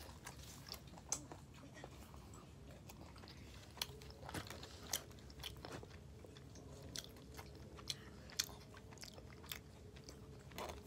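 A child chewing food close to the microphone, with irregular crunchy clicks and smacks.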